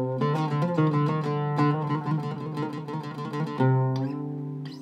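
Cedar-topped oud with a beech-and-walnut back and La Bella strings, played solo: a quick run of plucked notes, then a low note struck about three and a half seconds in and left to ring, and another note struck near the end.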